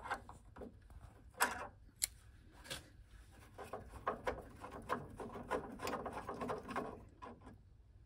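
Metal tool handling: a box spanner, turned with grips, clicking and scraping on a boiler's temperature sensor (thermistor) as it is worked loose from its pocket. Irregular clicks and scrapes, the sharpest about one and a half, two and two and three-quarter seconds in.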